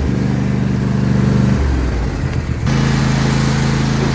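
John Deere S160 lawn tractor's engine running steadily just after starting, its note shifting about two-thirds of the way in.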